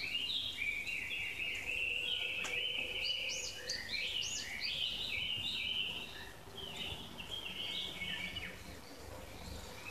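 Songbird singing a fast, jumbled, high warbling song almost without pause, easing off briefly about six seconds in.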